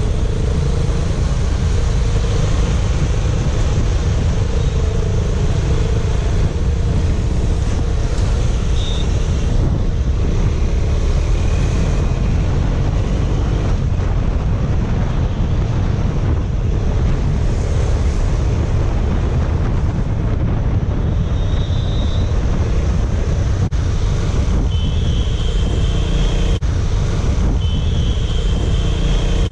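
Wind buffeting a helmet-mounted microphone while riding a single-cylinder KTM Duke motorcycle, with the engine running underneath in a steady, unbroken rush. Long high horn tones sound several times in the last several seconds.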